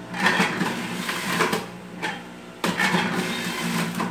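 Power Juicer Pro centrifugal juicer running with a steady motor hum while apple pieces are pushed down the feed chute and shredded. The grinding comes in repeated surges, loudest from a little before three seconds in.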